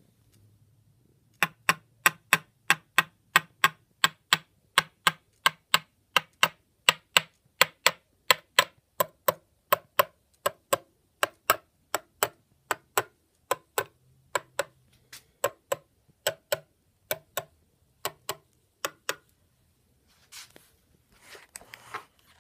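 Small metal tool tapping along guitar frets one after another, a sharp click at each tap, about two a second. The clicks vary in pitch: a higher click is a tight, seated fret, a lower click a loose one. Brief handling rustle near the end.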